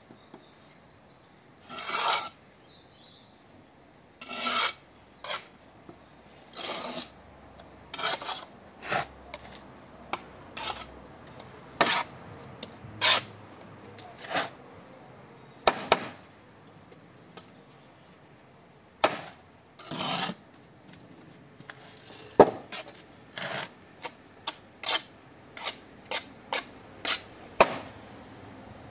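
Steel brick trowel scraping and slicing wet sand-and-cement mortar against clay bricks and the mortar board, in short irregular strokes about a second apart, with a few sharper clicks among them.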